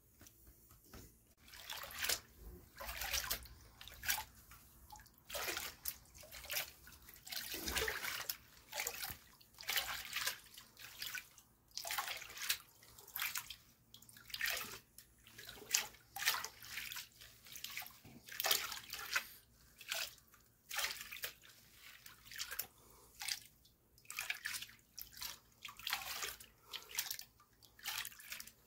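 Water sloshing and splashing as a plastic gold pan is shaken and dipped in a tub of water, in repeated swishes about once a second: panning off the light material to concentrate the black sand.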